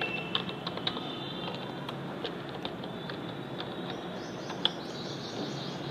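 Computer keyboard keys clicking in scattered, irregular taps as a search term is typed, over a steady background hiss.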